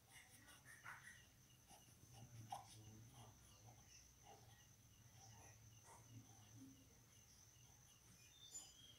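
Near silence: quiet room tone with a faint steady high-pitched whine and a few soft taps.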